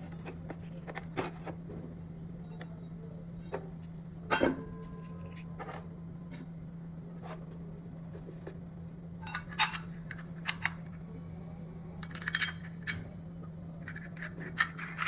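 Carbon-steel hole saw kit parts clinking and clicking as they are handled and fitted together: scattered light metal taps, one ringing briefly about four seconds in and a quick cluster near the end, over a steady low hum.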